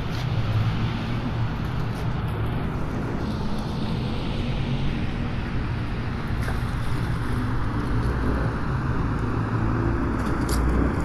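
Cars driving on a rain-wet road: steady hiss of tyres on water with a low engine rumble, swelling as a car passes a few seconds in, and the rumble growing near the end as another approaches.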